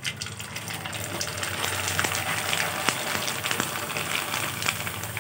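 A rice papad deep-frying in a kadai of hot oil. The oil sizzles with dense crackling as the papad puffs up, and the sizzle builds after about the first second.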